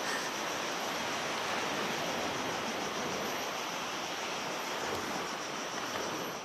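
Steady rushing noise of sea surf breaking on a beach, mixed with wind.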